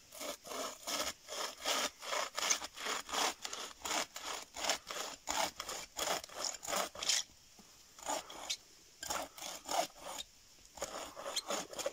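Folding bow saw cutting through a log with quick back-and-forth rasping strokes, about two or three a second, going through the wood easily ('like butter'). The strokes pause briefly a few times in the second half.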